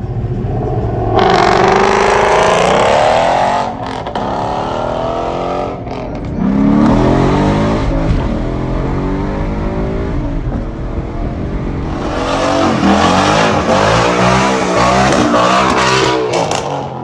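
Ford Mustang 5.0 V8 revving hard in three rising pulls, its pitch climbing, then falling back between pulls, with a loud rushing noise over the last pull.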